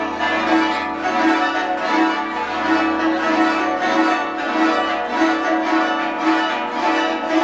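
Guzheng (Chinese zither) played live: plucked strings ringing on in a continuous melody, with quick repeated plucks.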